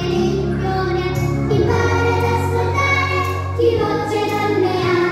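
A young girl singing into a microphone over a recorded backing track, holding long notes while the bass line changes under her.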